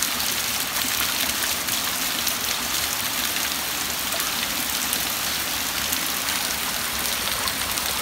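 Shallow rocky stream flowing, a steady rush of water.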